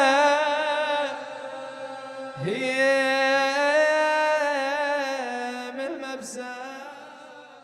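A man's voice chanting a Husseini lament in long, wavering held notes: a second phrase starts with an upward slide about two and a half seconds in, and the voice fades out near the end.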